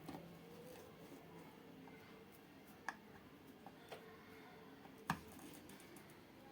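Near-silent room tone with a few faint, light clicks and taps: three or four in all, the loudest about five seconds in.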